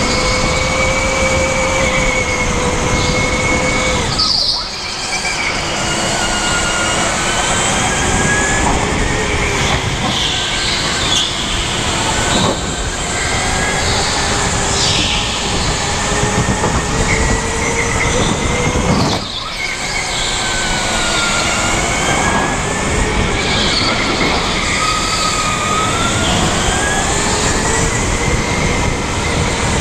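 Electric rental go-kart driven at speed, its motor whine gliding up and down as it accelerates and slows through the corners, over steady rushing noise. The level drops briefly twice, about four and a half and nineteen seconds in, as the kart slows.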